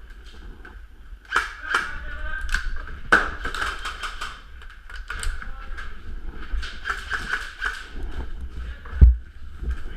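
Sharp clicks and taps in irregular runs, typical of airsoft guns firing at close range in a small room, with one heavy low thump about nine seconds in.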